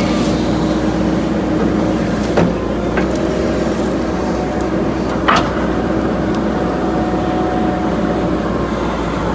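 JCB 3DX backhoe loader's diesel engine running steadily under work, with two sharp knocks about three seconds apart.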